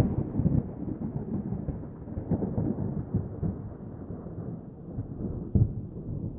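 Thunder rumbling: a loud crack at the start fading into a long low rumble, with a sharper crack about five and a half seconds in.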